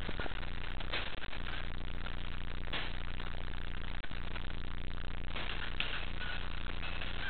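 Air hockey table's blower running with a steady hum and hiss, with a few sharp knocks of puck and mallets during play.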